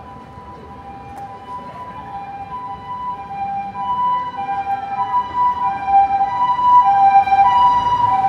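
Japanese ambulance siren sounding its two-tone hi-lo 'pee-poo' pattern, alternating about every half second and growing steadily louder as the ambulance approaches.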